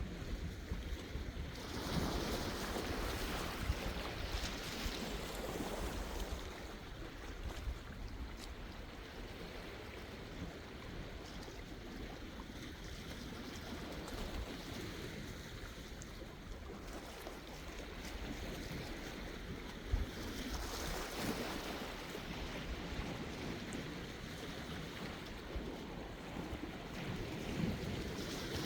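Sea waves washing in on the shore, a steady hiss of surf that swells as a wave comes in about two seconds in, again about twenty seconds in, and once more near the end.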